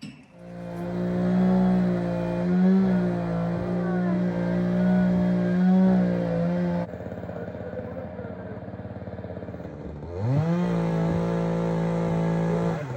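Gasoline chainsaw held at full throttle while cutting a tree. The engine drops back about seven seconds in, then revs up again about three seconds later and holds high until just before the end.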